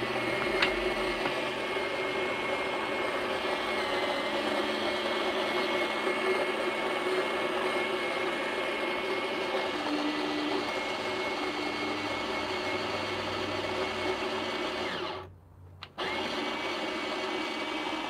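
Fellow Opus conical burr coffee grinder running, grinding beans at a fine setting: a steady, pretty quiet motor whir. The sound drops out for under a second about three-quarters of the way through, then carries on.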